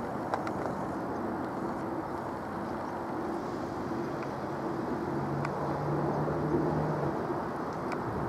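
Four-engined BAe 146 Avro RJ85 jet airliner climbing out overhead: a steady low engine rumble, mixed with distant road traffic. A low hum joins for about two seconds past the middle.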